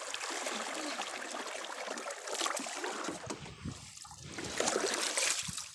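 Water splashing and trickling around a kayak as it is paddled, over a steady hiss.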